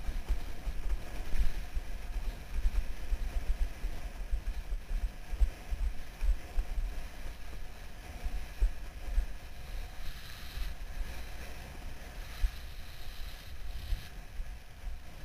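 Wind buffeting the action camera's microphone in constant low, gusty rumbles, over the rushing hiss of a windsurf speed board planing across choppy water.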